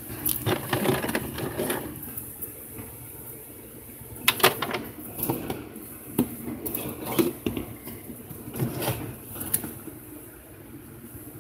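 Plastic toiletry bottles being grabbed, shuffled and set down on a cabinet shelf, making a string of irregular knocks and clatters that are busiest in the first two seconds and again midway.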